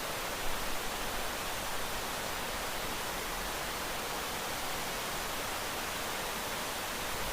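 Steady rain, an even hiss with no separate drops standing out and a few slightly louder spatters about half a second in.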